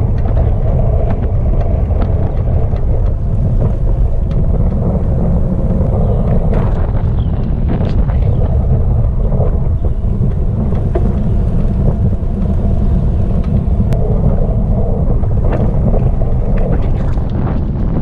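Wind buffeting the microphone of a camera on a moving bicycle: a loud, steady low rumble with a few faint clicks.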